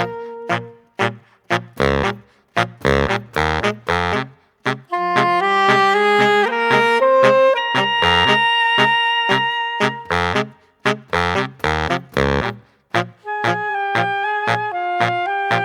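Background music: an instrumental track with a steady beat and a wind-instrument-like melody.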